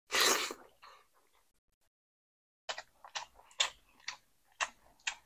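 Close-miked mukbang eating sounds: a short noisy burst just after the start, then, from a little under three seconds in, wet, crackly chewing clicks about twice a second.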